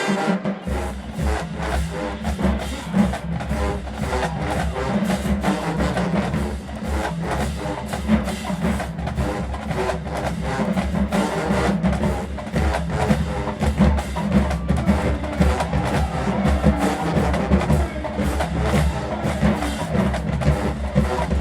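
Marching band drumline playing a fast drum cadence: rapid sharp drum strokes over a heavy, steady bass-drum pulse.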